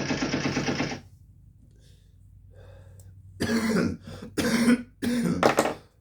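A man coughing hard from smoke after smoking weed, clearing his lungs: a loud rasp about a second long at the start, then three harsh coughs in quick succession about halfway through.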